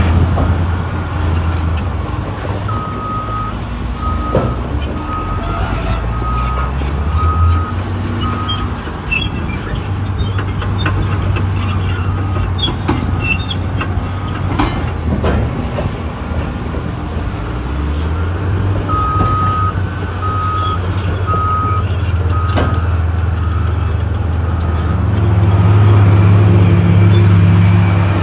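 Caterpillar excavator's diesel engine running under load as the bucket digs and dumps, with scattered metallic clanks. An alarm beeps steadily, about one beep every two-thirds of a second, in two runs, one early and one past the middle. Near the end the engine revs up louder.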